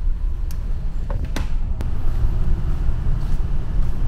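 Wind buffeting the microphone on a ferry's open deck, a heavy, uneven low rumble, with a few sharp clicks in the first two seconds.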